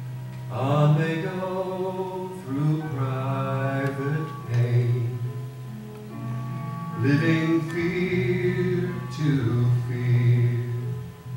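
Special music: a voice singing in long held phrases over a steady, sustained instrumental accompaniment.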